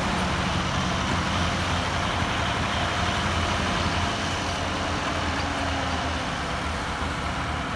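Diesel engines of two tractors hitched in tandem by a chain, a Ford 3610 and a second Ford, running steadily under load as they tow a heavily laden fodder trolley out of soft ground; a continuous low engine drone that eases a little partway through.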